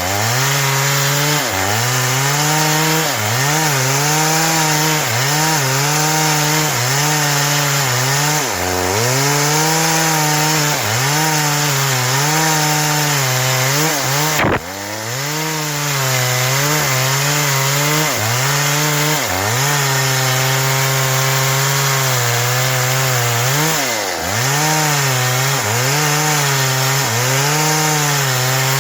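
Stihl MS 382 two-stroke chainsaw running at high revs while ripping through wood, its engine note sagging briefly and recovering every second or two as the chain bites under load. About halfway through there is a sharp click and a brief drop in level before the saw carries on.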